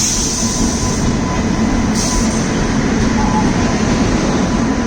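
Netravati Express passenger train rolling into the station, a loud steady rumble of wheels on rail with a thin high whine over it. A short high hiss comes at the start and again about two seconds in.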